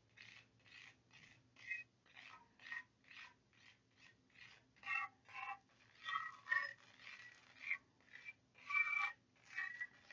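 Disposable spoon stirring and scraping a thick charcoal and castor-oil paste around a glass bowl: a run of short, faint scrapes, roughly two a second, some with a brief squeak.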